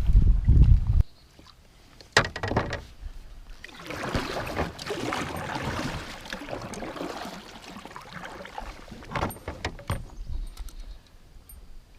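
Sounds of a kayak on the water: a gust of wind on the microphone at the start, then clunks and rattles of gear against the kayak and a few seconds of water splashing.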